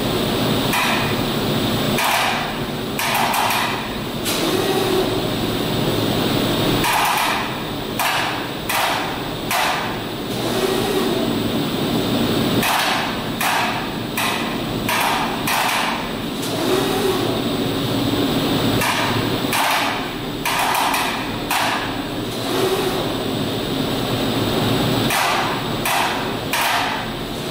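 Automated tape laying machine at work: groups of quick, sharp mechanical knocks from the placement head, one group every five or six seconds as each tape pass runs, over a steady machine hum.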